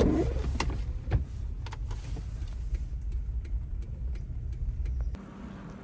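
A vehicle driving, heard as a steady low rumble of road and wind noise with scattered sharp ticks. It cuts off suddenly about five seconds in, leaving a faint steady hum.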